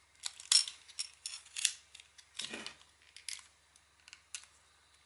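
Barbecue lighter's plastic trigger and casing clicking and rattling as it is pushed and worked against its safety lock, which keeps it stuck: a quick, irregular run of short, sharp clicks.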